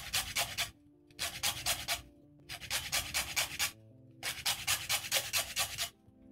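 Small green lemon being zested on a grater: four runs of quick scraping strokes, each about a second long with short pauses between them. Soft background music plays underneath.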